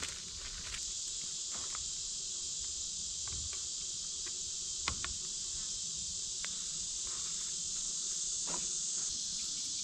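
Steady, high-pitched chorus of insects such as crickets, with a few light clicks and taps, the sharpest about five seconds in.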